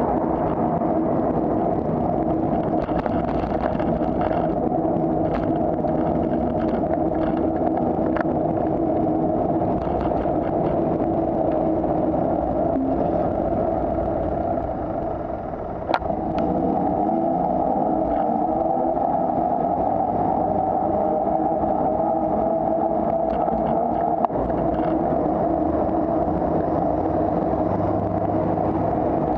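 Steady wind and road noise on a bicycle-mounted camera while riding, with motor traffic running close alongside. A sharp click comes about halfway through and a smaller one later.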